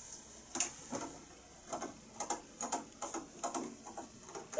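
A string of light, irregular plastic clicks and taps, about a dozen, from hands working a toy vanity's mirror and pressing the crown button on top of it, the button that sets off the magic-mirror toy's spoken reply.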